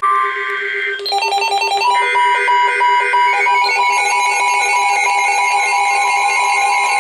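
Electronic alert tones layered one over another: a steady low tone runs throughout, while higher tones, some steady and some beeping rapidly, cut in about a second in and thicken into a dense stack of alarm sounds around four seconds in.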